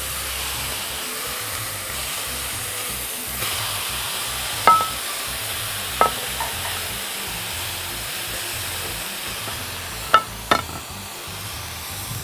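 Marinated chicken sizzling steadily on a hot ridged grill pan, with four sharp clicks of a utensil against the pan: two near the middle and two close together near the end.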